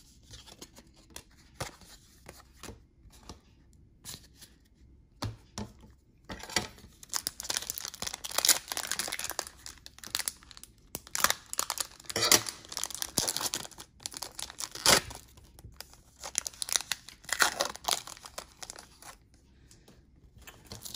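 Trading card pack wrappers being torn open and crinkled while cards are handled: a few light ticks and rustles at first, then from about six seconds in a long stretch of close tearing and crinkling.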